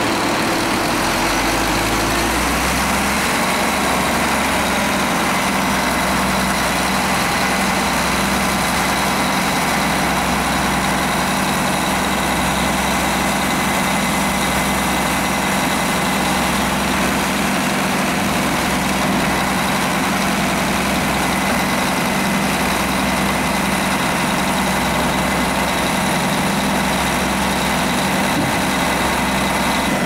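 Scania diesel engine of a Bruks wood chipper running steadily under a constant load, with a faint steady high whine over it. Its engine note shifts to a new steady pitch about two and a half seconds in.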